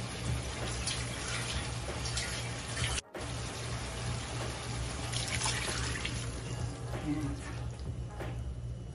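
Water being poured into a frying pan of sautéed chicken pieces: a steady splashing pour, broken by a short cut about three seconds in. The water is added so the chicken can simmer until tender.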